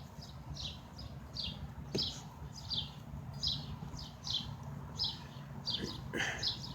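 A small bird chirping over and over, short falling high notes about two to three a second.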